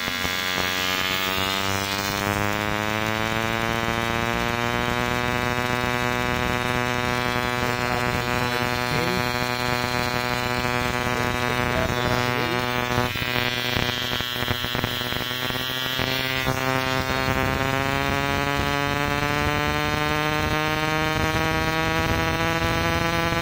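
Ignition coil fired by a home-built four-channel CDI, sparking across an air gap in a rapid, continuous buzz. Its pitch rises slowly and steadily as the signal generator's trigger rate is raised, simulating engine speed climbing toward 9000 rpm.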